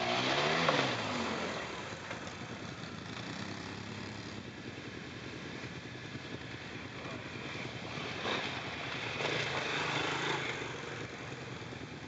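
Quad bike (ATV) engines passing one after another on a dirt trail. The first passes close right at the start, its engine note falling as it goes by. A second swells and passes around eight to ten seconds in.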